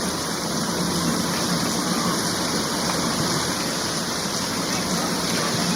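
Steady, unbroken rush of flowing water, like a waterfall or fast stream.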